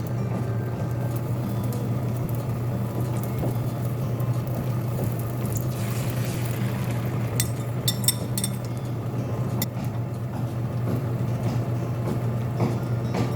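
A steady low hum, with a few light clicks about eight seconds in.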